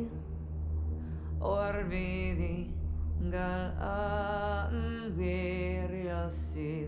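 Film score music: a voice chanting in short phrases with gaps between them, over a steady low drone.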